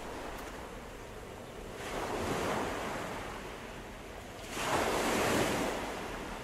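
Ocean surf washing onto a beach: a steady rushing of water that swells twice, about two seconds in and more loudly at about four and a half seconds, as waves break.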